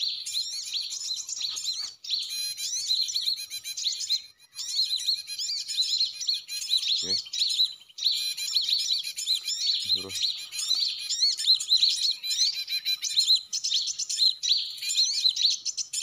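Dense, continuous twittering of many small birds, rapid overlapping chirps with no pause: the 'burcil ribut' (noisy small birds) lure call that draws Java sparrows to lime-stick traps.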